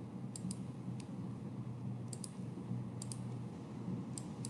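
Computer mouse clicks: about five short, sharp clicks roughly a second apart, most heard as a quick double tick, over a low steady hum.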